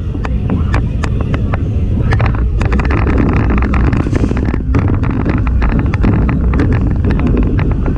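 Zierer Force Two family roller coaster train rolling along its steel track: a steady low rumble of the wheels with rapid irregular clicking and rattling. Wind buffets the camera microphone.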